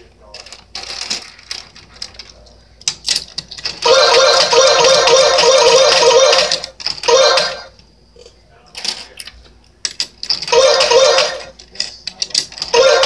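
Coins clinking as they are scooped from a toy slot machine's payout tray and dropped into its coin slot. A long burst of rapid clattering about four seconds in, and shorter ones near the end.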